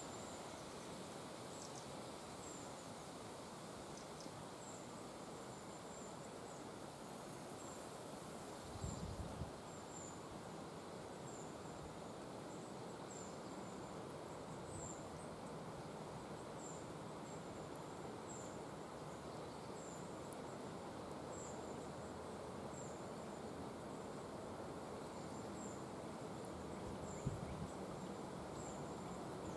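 Faint steady outdoor background noise, with a short high-pitched chirp repeating about once a second and two brief low knocks, one about nine seconds in and one near the end.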